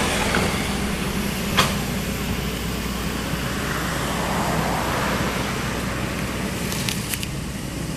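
Excavator's diesel engine running steadily. A sharp metallic knock comes about a second and a half in, and a few short clicks come near the end.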